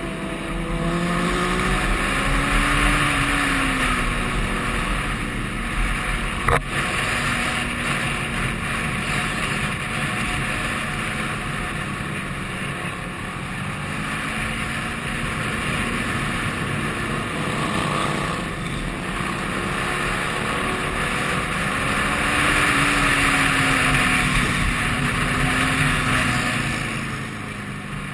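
Motorcycle engine running on the move, its pitch rising and falling as the throttle opens and closes, under a steady rush of wind on the microphone. A single sharp click about six and a half seconds in.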